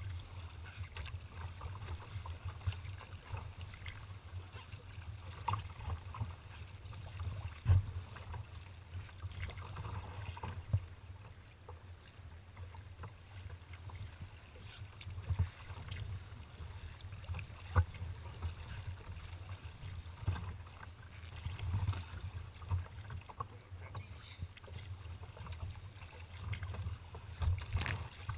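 Choppy water slapping and splashing against a kayak's hull under way, over a steady low rumble. A few sharp knocks stand out where waves hit the hull.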